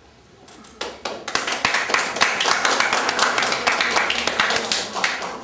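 Audience clapping, starting about half a second in, building quickly to a full round of applause and dying away near the end.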